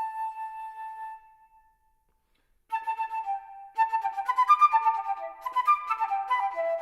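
Solo flute playing: a long held note fades away, and after about a second of silence the flute comes back with quick, rapid runs of short notes that grow busier toward the end.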